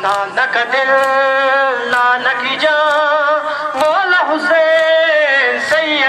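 Male voice reciting a Muharram noha in long, wavering held notes. Sharp slaps come about once a second: mourners beating their chests in matam.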